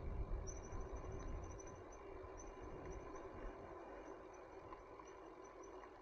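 Bicycle riding along a park path: a low rumble of wind on the handlebar-mounted camera's microphone and tyre noise, heaviest in the first couple of seconds and then easing. A high, rapid trilling call repeats faintly in runs in the background.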